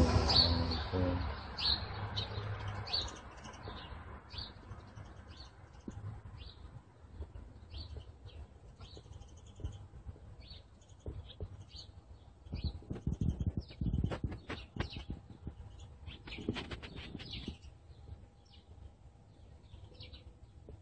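Small birds chirping, short high chirps repeating about once a second throughout. Bursts of low rumbling noise come through at the start and twice around the middle.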